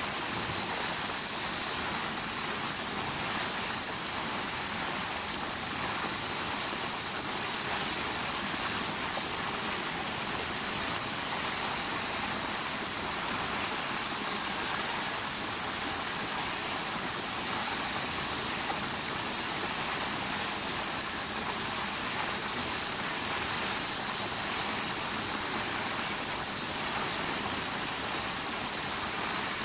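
Steady high-pitched drone of a summer cicada chorus, with a fainter pulsing call coming and going above it.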